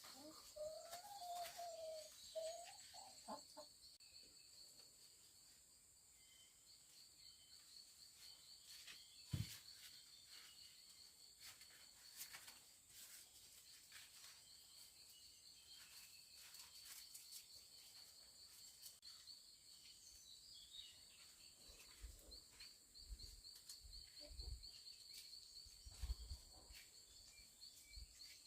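Faint outdoor ambience: insects give a steady, high trill throughout. A wavering bird or fowl call comes in the first two seconds, and scattered faint knocks follow, one louder about nine seconds in.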